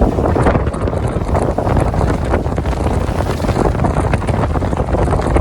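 Strong wind buffeting the microphone aboard a paraw outrigger sailboat under sail, over water rushing and splashing along the hull.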